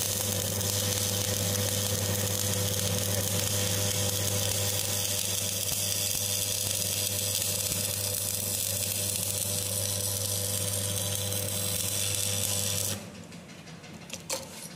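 Stick (manual metal arc) welding arc crackling and hissing steadily over a low hum for about thirteen seconds, then breaking off as the electrode is lifted. A few light clicks follow near the end.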